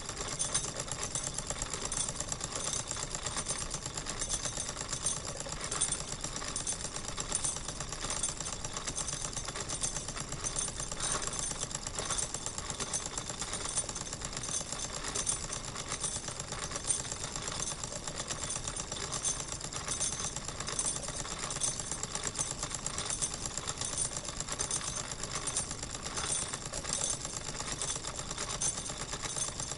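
Wilesco model steam engine running steadily at an even speed, with a fast, regular beat.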